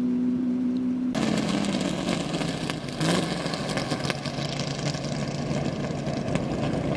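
Land-speed race vehicle engines idling. A steady engine tone gives way abruptly about a second in to another engine idling lower over a noisy background, and its pitch drops again about three seconds in.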